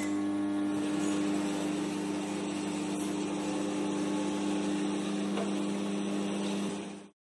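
Microwave oven running: a steady electrical hum with its fan, which cuts off suddenly near the end.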